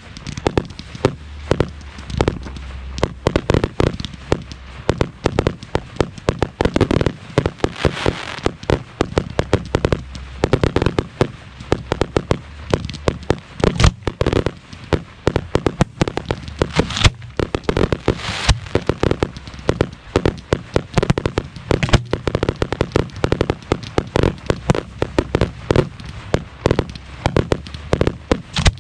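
Professional 1.3G display fireworks heard from the mortar-rack firing line: a dense, continuous string of sharp bangs, several a second, as large shells are fired from the racks and burst, with heavier clusters now and then.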